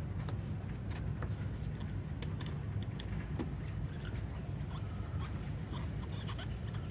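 Scattered light clicks and taps from screws being handled and driven back into a car door panel, over a steady low hum.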